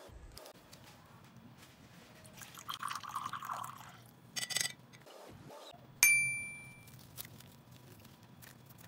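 Water poured from a beaker into a glass measuring cup for about a second, followed by a couple of light glass clinks. About six seconds in, a glass bowl knocks sharply against glass and rings out clearly, fading over about a second.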